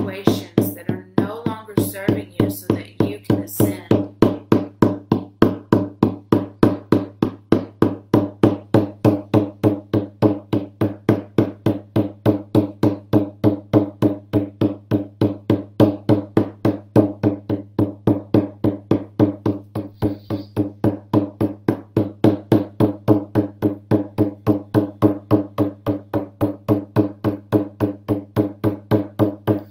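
Hand-held frame drum beaten in a steady, even rhythm of a few strokes a second, each stroke ringing with a low tone.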